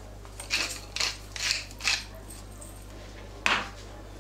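Pepper mill grinding black pepper over a bowl of batter: four short gritty twists about half a second apart, then a single louder rasp near the end.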